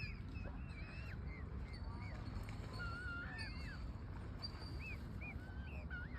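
Birds calling: many short chirps and whistled notes, some rising and falling, over a steady low rumble.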